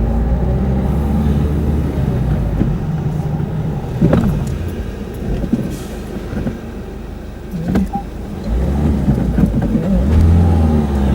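A vehicle's engine runs close by, with a low steady hum that grows louder near the end. Two sharp knocks come about four and about eight seconds in.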